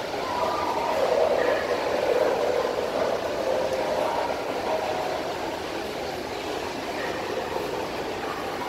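Steady background hubbub of a crowd: an even wash of noise with faint, indistinct snatches of voices, a little louder a second or so in.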